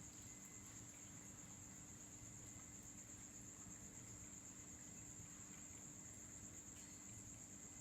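Faint, steady, high-pitched insect trilling that runs on without a break, over a faint low hum.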